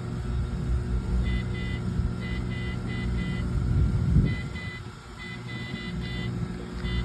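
Electronic beeping from a ride-on toy car: short beeps at one high pitch, in quick runs of two to four, over a steady low rumble.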